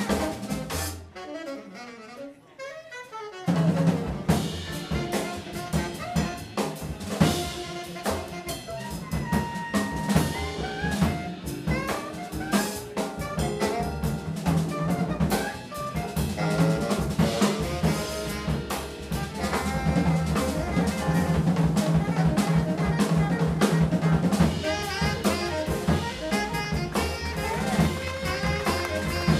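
Live jazz band: saxophone playing over upright bass, drum kit and electric piano. About a second in the music thins to a quieter passage with no bass, and about two seconds later the full band comes back in.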